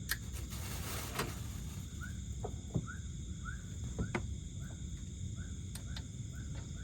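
Night insect chorus: a steady high-pitched trilling of crickets, with short rising chirps repeating roughly every half second to a second and a few sharp clicks, over a low steady background rumble.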